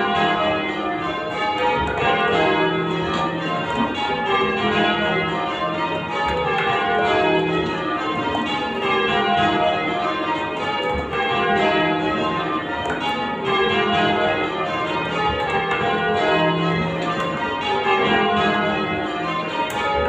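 A ring of church bells being rung full circle by ringers on ropes, heard from the ringing chamber beneath the bells. The bells strike in steady rows, each row falling from the highest bell to the lowest, as in call changes.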